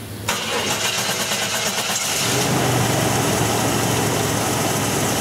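A 1996 Chevy G1500 van's 5.7-litre V8 being started: the starter cranks briefly with a quick pulsing, the engine catches about two seconds in, and it settles into a steady fast idle.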